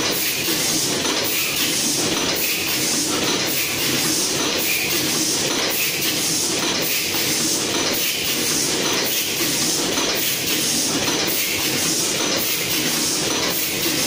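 Automatic facial sheet mask folding and bagging machine running, its pneumatic and servo mechanisms cycling with a steady mechanical clatter and hiss that pulses in an even rhythm.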